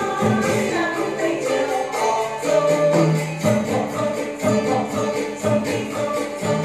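Traditional Vietnamese water-puppet ensemble playing live: drums and small cymbals strike steadily under held melodic instrumental tones.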